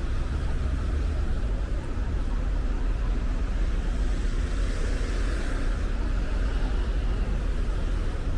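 A car driving on a city road: a steady low rumble of road and engine noise with tyre hiss, the hiss swelling a little about halfway through.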